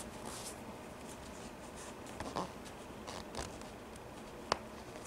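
Faint rustling and scuffing of hands handling a pair of knit Yeezy Boost 350 V2 sneakers, fingers rubbing and flexing the knit uppers and heel linings, with a single sharp tick about four and a half seconds in.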